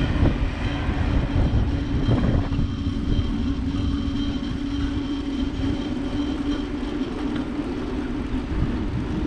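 Wind and road rumble on the microphone of a moving bicycle, with a steady hum running through it.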